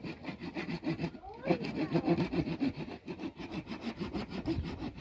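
Hand saw cutting through a branch of firewood in quick, regular back-and-forth strokes.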